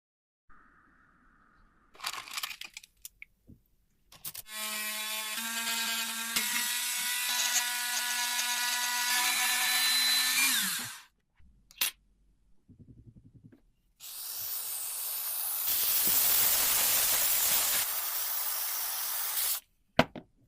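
Small electric power tool running on rusty metal typewriter parts in two long spells of about six seconds each: the first has a steady motor hum, the second is a harsher hiss. A few short scrapes and clicks come before and between them.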